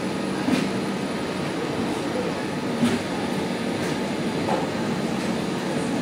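Passenger coaches of an electric-hauled express train rolling slowly out of a station: a steady rumble, with a sharp clack of wheels over rail joints three times.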